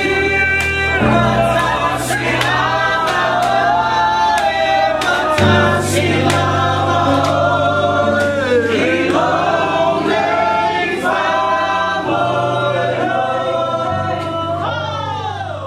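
Background music: a choir singing over held low chords. It starts to fade out near the end.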